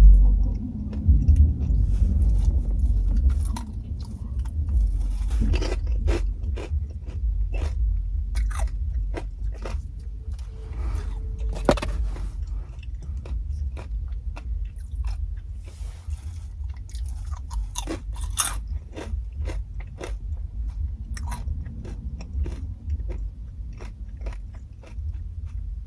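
Close-miked biting and chewing of fried crab rangoons (cream cheese wontons): many sharp, crisp crunches with chewing between them.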